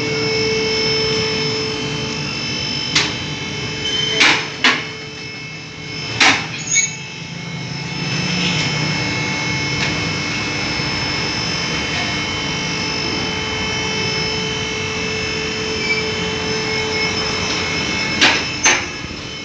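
Car-workshop machinery humming steadily, with sharp metal clanks of tools, mostly in pairs: a cluster a few seconds in and another near the end.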